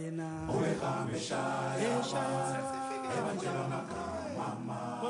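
Background vocal music: several voices singing together in long held notes that slide down at their ends.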